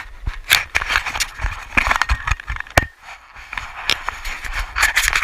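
Irregular scraping and rustling with many sharp clicks and knocks, as of things being moved and handled by hand close to the microphone.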